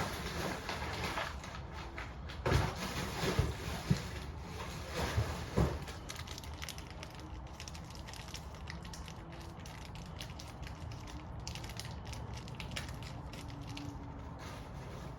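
Hand work on a water heater burner assembly: several sharp knocks of metal parts in the first few seconds, then a long run of small irregular clicks and ticks.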